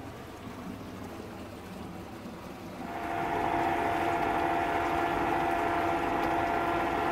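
After about three quiet seconds, an Epropulsion electric outboard motor is heard running under way: a steady high whine over the wash of the water churned by its propeller.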